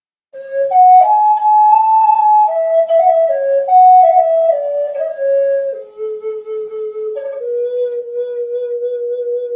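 Wooden Native American flute played solo: after a short pause, a breathy melody of stepped notes that works its way downward, settling into two long held low notes.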